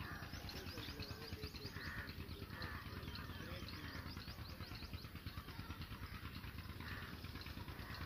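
Myna nestlings begging with rapid, thin, high-pitched cheeps, many a second, over a steady low rumble.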